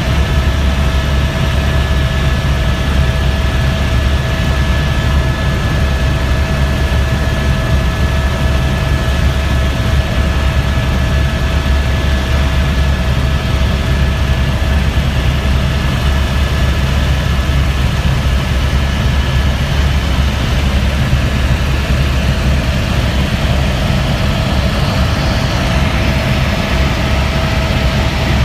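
Helicopter in flight heard from inside the cabin: a loud, steady low drone from the rotor and engine, with a constant high whine over it.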